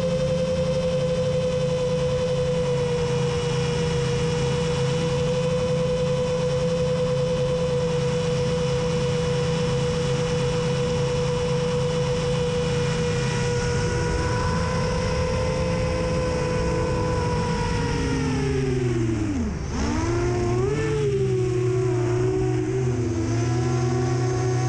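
TBS G2 quadcopter's TBS Endurance brushless motors spinning 7-inch props, running at steady cruise throttle with a high whine. About eighteen seconds in the whine swoops sharply down as the throttle is cut, then picks up again and carries on at a somewhat lower pitch.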